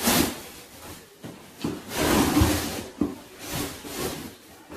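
Cardboard box flaps being pulled open and a nylon carry bag scraping and rustling as it is slid out of the box, in several bursts, the longest and loudest about two seconds in.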